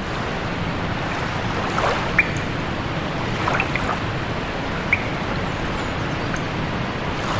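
Steady rush of flowing water, with a few short, high bird chirps about two, three and a half, and five seconds in.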